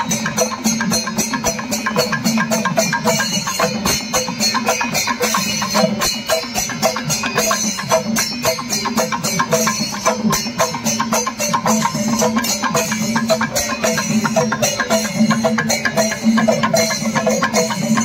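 Traditional temple percussion ensemble playing a fast, dense rhythm: rapid drum strokes with rattling high percussion over a steady low tone.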